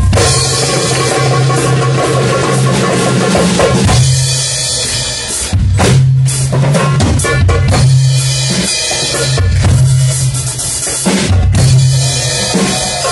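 Live band music: a drum kit keeps a steady beat, with goblet hand drums and a plucked string instrument playing along, over a strong low bass note.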